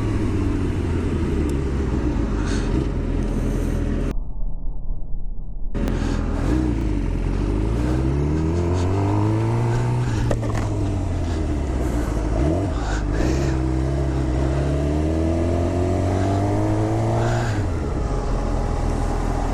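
Suzuki GSX-R 750 inline-four with an Akrapovic slip-on exhaust, revving up and down as the bike accelerates through the gears and slows: the engine note climbs and falls several times. For about a second and a half, around four seconds in, the sound goes dull and muffled.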